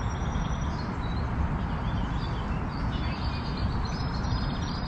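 Birds chirping, with short repeated trills, over a steady low rumbling noise.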